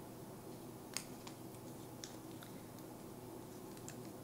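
A few faint clicks and light rustles of hands handling an Apple Watch charger and its cardboard-and-paper packaging, the loudest click about a second in.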